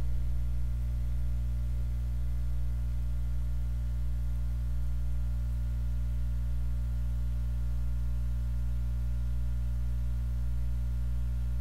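Steady low electrical mains hum with a row of fainter, higher overtones, unchanging throughout.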